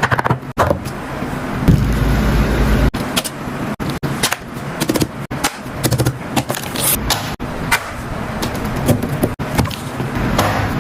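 Fidget toys being handled close to the microphone: a dense, irregular run of clicks, scrapes and crackles.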